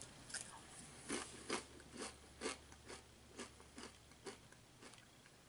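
A man chewing a kettle-cooked potato chip: a run of faint, crisp crunches about twice a second, getting fainter toward the end as the chip is chewed down.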